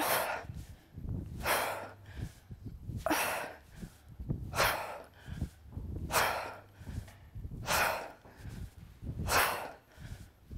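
Sharp, forceful breaths pushed out hard, seven of them at an even pace of about one every one and a half seconds: a person exhaling in time with each kettlebell swing.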